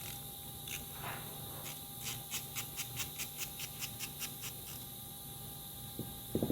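A quick run of about a dozen light, evenly spaced clicks, roughly four or five a second, from small drill parts being worked by hand, with a few scattered clicks before it and a couple of dull knocks near the end.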